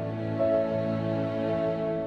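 Slow background music with long held chords; the chord changes about half a second in.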